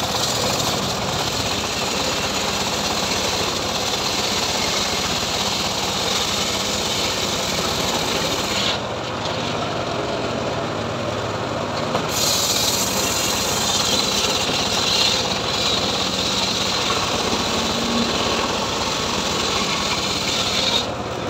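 Homemade engine-driven circular sawmill ripping a log lengthwise into a plank, the blade running steadily through the wood over the engine noise. The highest hiss eases for a few seconds about nine seconds in.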